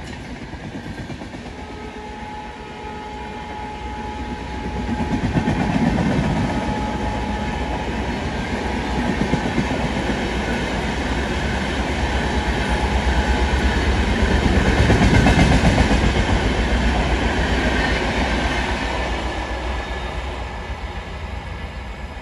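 Coaches of an Indian Railways passenger train behind a WAP7 electric locomotive running through a station, with the wheels clattering along the rails. The sound swells to its loudest about two-thirds of the way through, then fades as the last coaches pull away.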